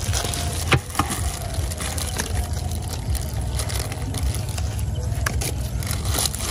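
Pliers picking guava leaves off a roast pork belly: a few light clicks and crackles, the clearest about a second in, over a steady low rumble.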